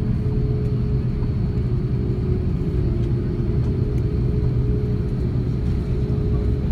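Airbus A330-300 cabin noise: a steady low rumble with a constant hum, heard from inside the cabin while the airliner is on the ground after landing.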